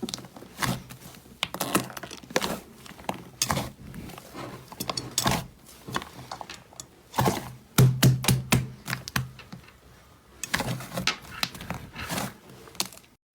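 Slime being squeezed and poked by hand, giving a quick, irregular run of sticky clicks and small pops.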